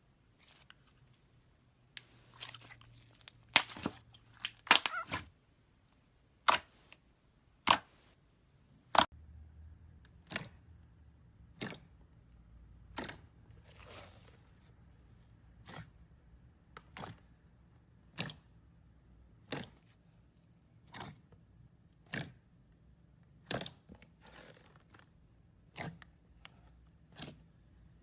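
Glossy slime being pressed and squeezed by hand, giving sharp clicks and pops: a quick cluster in the first few seconds, then single clicks at a steady pace, about one every second and a quarter.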